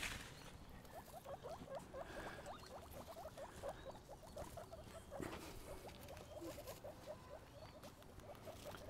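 Guinea pigs squeaking: a quiet, steady run of short rising chirps, several a second, with a soft knock about five seconds in.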